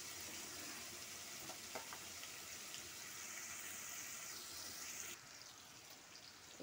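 Chopped red onion frying in hot oil, a steady sizzle with faint pops, the hiss dropping away about five seconds in.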